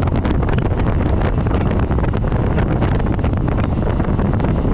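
Wind buffeting the microphone held outside a speeding EMU local train, over the train's running rumble with quick, uneven clatter from the wheels on the track.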